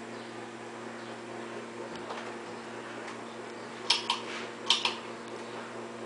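Bahama ceiling fan running at speed with a steady motor hum. About four seconds in, two quick double clicks, a little under a second apart, stand out as the loudest sounds.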